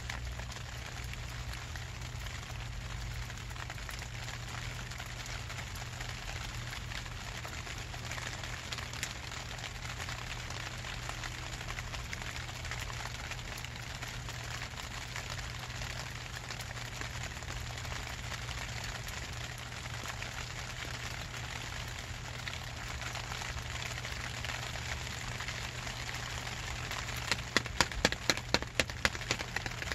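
Steady rain falling, heard from under a plastic tarp. Near the end comes a quick run of about nine sharp taps, some four a second, louder than the rain.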